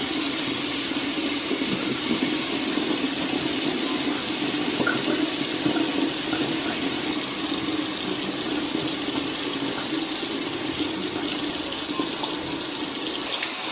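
Water running steadily from a tap.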